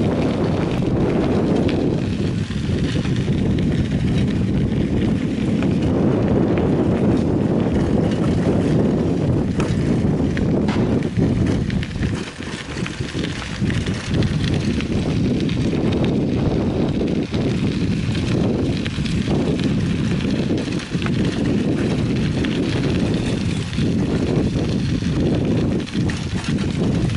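Wind buffeting the microphone of a camera riding on a moving bicycle, with the bike rumbling and rattling over a rough dirt track.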